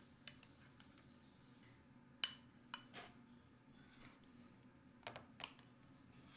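Several light, sharp clicks and taps of small objects being handled, the loudest a little over two seconds in and a pair near the end, over a faint steady hum.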